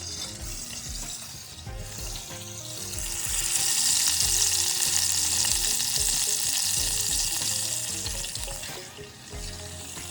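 Food sizzling as it fries in a pan. The sizzle swells about three seconds in and eases off near the end, over quiet background music with a steady beat.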